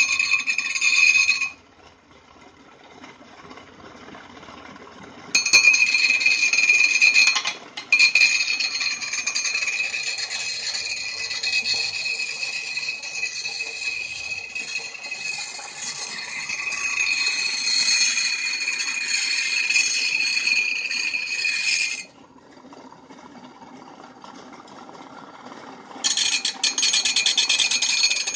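Steel blade being ground on a pedal-driven sharpening wheel: a loud, high-pitched ringing screech of metal on the abrasive stone. It comes in long passes: briefly at the start, then from about five seconds in until about twenty-two seconds with a short break near eight seconds, and again near the end, with quieter pauses between.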